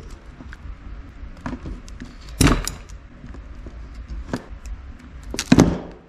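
Handling noise from wiring work: scattered small clicks and rustles of wires and hand tools, with two louder short noisy sounds about two and a half and five and a half seconds in.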